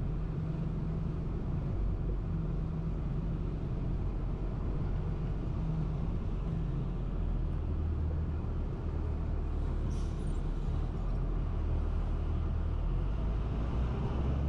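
Truck engine running steadily under way, heard from inside the cab as a low drone. Its note drops lower about seven seconds in.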